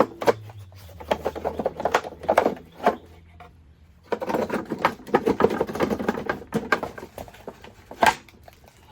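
Quick clicking and metal clinking as hand tools and metal parts are worked loose from the underside of a lawn mower deck. The sound comes in two busy stretches with a short lull near the middle, and there is one sharp knock near the end.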